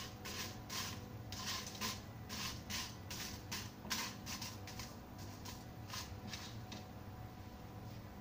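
Black slotted spatula stirring and scraping whole spices as they dry-roast in a small nonstick pan: dried red chilies, coriander seeds and bay leaf. The spatula makes a quick series of dry, rustling scrapes that stops about seven seconds in, over a faint steady hum.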